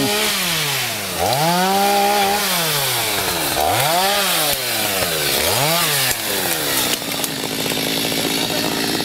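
Two-stroke chainsaw revved up and down three times, its pitch rising and falling with each rev, then running at a steadier pitch near the end.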